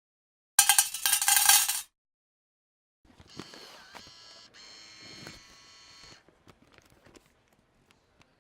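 Coins clinking: a loud, bright jingle of coins lasting about a second, starting about half a second in, then after a pause a quieter stretch of ringing metallic jingling with small clicks that thins out to scattered ticks.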